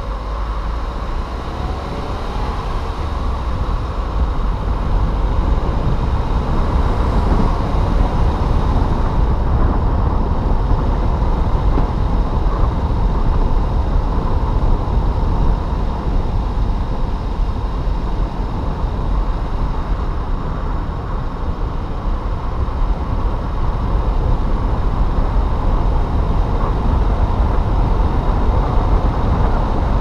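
A car driving on city streets: steady tyre and road rumble with engine noise, getting louder a few seconds in as it picks up speed.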